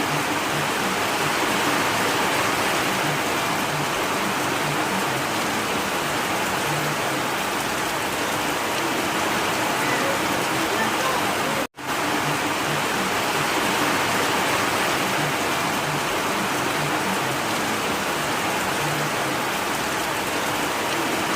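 Steady rain falling, an even hiss of many drops, broken by a split-second dropout to silence about twelve seconds in.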